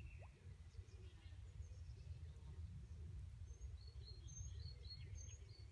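Quiet pondside ambience: a faint low rumble with small birds chirping, a few short high chirps about four seconds in.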